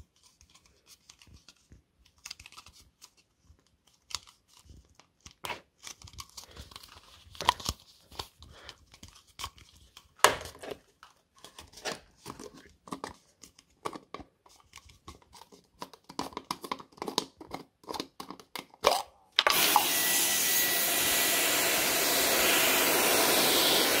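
Irregular clicks, taps and scrapes of a clear plastic jar being handled against a wall, then about three quarters of the way through a Dyson vacuum cleaner switches on and runs with a steady, even rushing noise.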